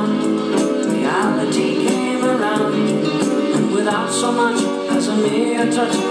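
A song with singing and band backing, playing from a cassette through the GoldStar TSV-3900 boombox's speakers, thin in the bass.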